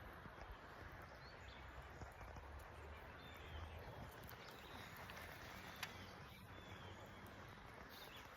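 Near silence: faint steady outdoor ambience with a few brief, high bird chirps and one small click about six seconds in.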